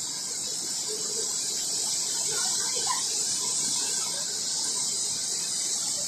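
Spillway discharge: a huge jet of water rushing out of a steep chute and crashing into a cloud of spray, heard as a steady, unbroken hiss.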